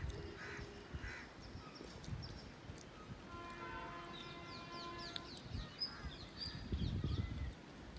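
Distant horn of an approaching Indian Railways WAP-7 electric locomotive, held for about two seconds midway, with birds calling and chirping around it. A low rumble rises near the end.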